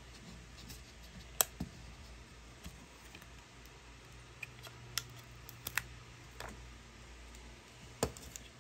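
Clear plastic packaging being pried and slipped off an iPod touch: a handful of sharp plastic clicks and taps, the loudest about a second and a half in.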